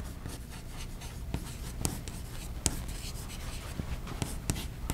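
Chalk writing on a blackboard: scratchy strokes broken by sharp taps as the chalk strikes the board, with about three louder ticks.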